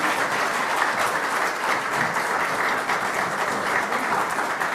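Audience applauding in a hall: many people clapping steadily after a speech.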